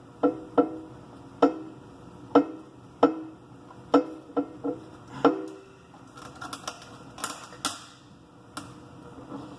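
Irregular sharp knocks, each with a short ringing tone, from hands pressing and working a wet vinyl decal onto a plastic car brake scoop. About nine knocks come in the first half, then softer, quicker clicks and scraping.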